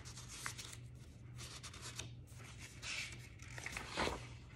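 Paper pages of a workbook rustling as they are handled and flipped: soft papery swishes, the loudest about four seconds in.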